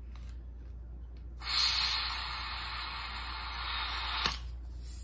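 Green gas hissing out of an inverted can into a gas BB revolver as the gun's gas reservoir is filled. One steady hiss of about three seconds starts a little over a second in and ends with a click as the can comes off.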